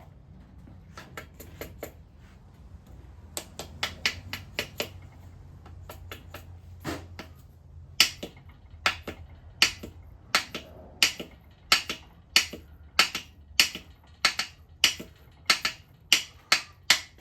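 Hammer tapping a part into place during an engine rebuild: light, irregular sharp taps at first, then a steady run of harder taps about one and a half a second from about halfway through.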